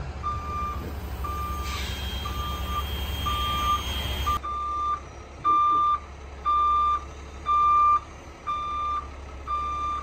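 Semi truck's reversing alarm beeping about once a second while the rig backs up, over the low running of the truck's diesel engine. The beeps get louder after about four and a half seconds, when the engine rumble drops back.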